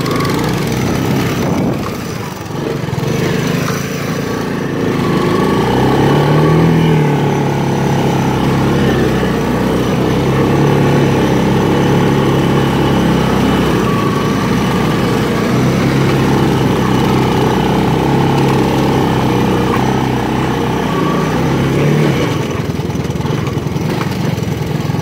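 Honda Big Red three-wheeler's single-cylinder four-stroke engine running under way, heard from the rider's seat. The revs rise and fall briefly about six seconds in and again near the end.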